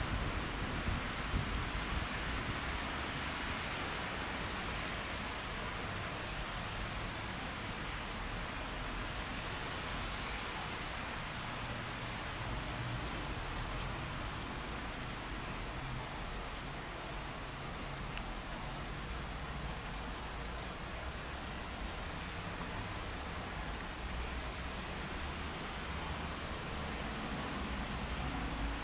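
A steady, even hiss like rain, with an uneven low rumble beneath it.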